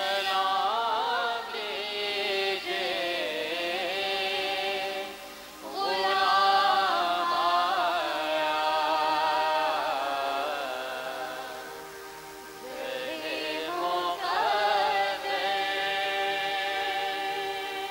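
A woman sings a hamd, a devotional song praising God, in three long phrases of held, ornamented notes.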